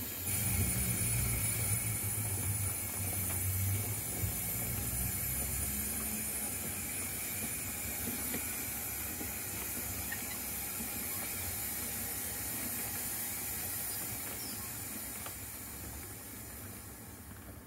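A 0 gauge model goods train (steam tank locomotive and wagons) running over the track: a low rumble of wheels that fades as the train moves away, over a steady hiss.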